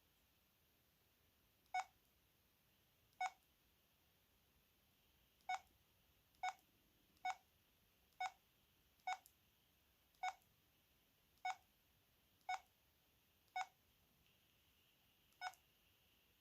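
VK530 mobile phone's keypad beeping as its buttons are pressed: about a dozen short beeps, all of one pitch, coming at uneven intervals about a second apart.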